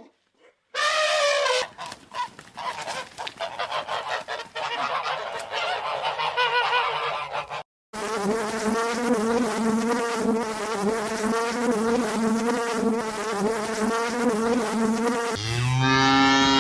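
A string of separate animal sound clips: goose honking and chatter for the first several seconds, then, after a sudden cut, a steady wavering insect buzz for about seven seconds, and near the end a cow starting to moo.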